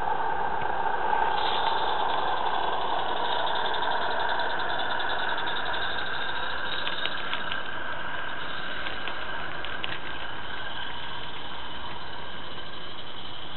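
Roundhouse 'Billy' live-steam garden-railway locomotive running past: a steady hiss of steam with a rapid exhaust beat, and a few light clicks about midway as it passes close. The sound fades slightly as it draws away.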